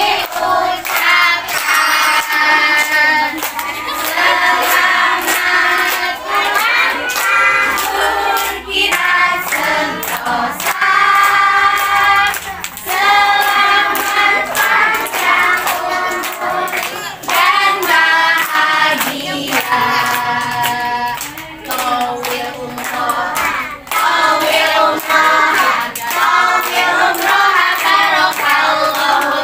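A group of children and women singing together and clapping their hands along with the song.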